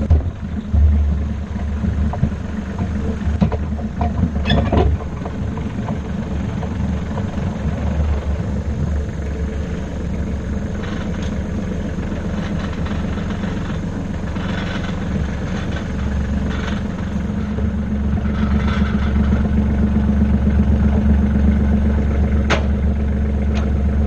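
Tractor engine running steadily at a low hum, towing a loaded dirt wagon, with a couple of sharp knocks about five seconds in and again near the end.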